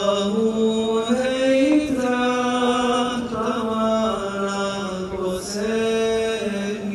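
A solo male voice singing an ilahija, an Islamic devotional song about martyrs, unaccompanied, in long held notes that step slowly up and down, with a brief dip in loudness around five seconds in.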